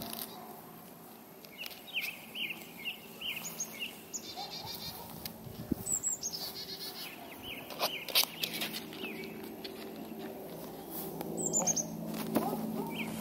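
Wild songbirds chirping, with runs of short repeated chirps and a few quick trills, and several sharp clicks, the loudest about 8 seconds in.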